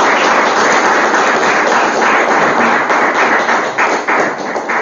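Audience applauding, a dense run of many hand claps that fades away near the end.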